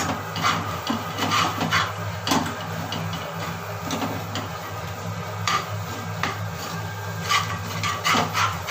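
A spatula scraping and stirring an egg-and-greens stir-fry in a frying pan, in irregular short strokes over a steady low hum.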